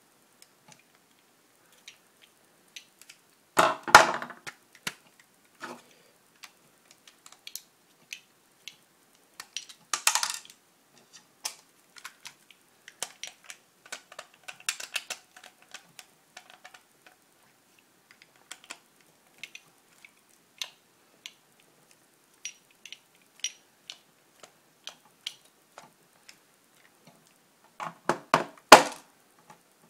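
Small clicks and clinks of a Torx security screwdriver and loose screws handled against a plastic Xbox 360 controller shell while its back screws are taken out, with louder clattering bursts about four seconds in, about ten seconds in, and near the end.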